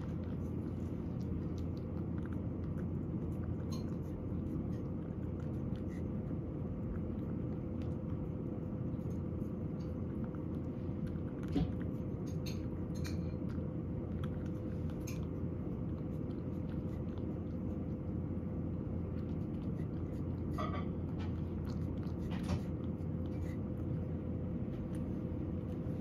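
Cat eating soft food from a ceramic bowl: faint, irregular chewing and lapping clicks over a steady low hum.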